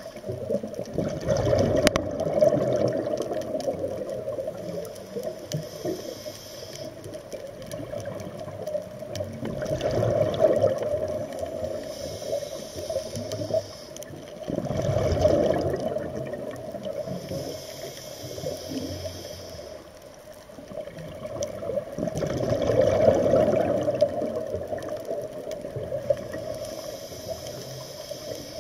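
Scuba diver breathing through a regulator underwater, heard through the camera housing. The gurgling bubbles of four long exhalations alternate with quieter hissing inhalations.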